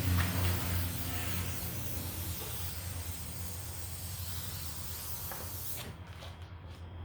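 Aerosol can of mosquito repellent spraying in one long continuous hiss that cuts off suddenly about six seconds in, over a low steady hum.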